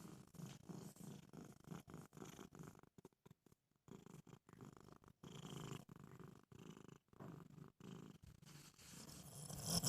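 A woman snoring faintly: a low, rattling flutter of quick pulses, broken by a short pause between breaths.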